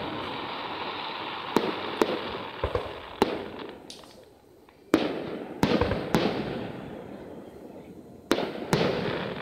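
Aerial firework shells bursting: about nine sharp bangs, some in quick pairs, each fading away slowly, with a short quieter gap about four seconds in.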